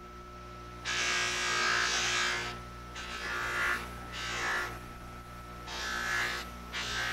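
Bench grinder fitted as a buffer, running with a steady motor hum, and a loose sewn cloth buffing wheel giving several rushing hisses as a turned wooden knob is pressed against it and drawn away. The first hiss, about a second in, is the longest.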